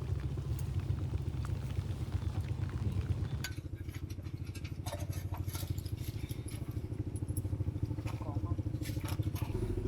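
An engine idling steadily with a fast, even pulse, its pitch shifting slightly about three and a half seconds in and again near the end. Scattered light clicks and clinks sound over it.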